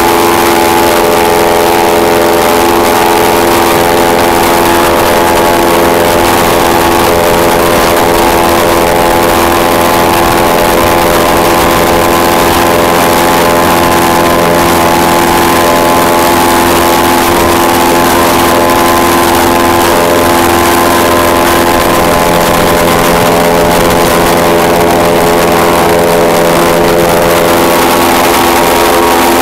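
Airboat engine and propeller running loud and steady at speed, an even engine drone over a constant rushing hiss.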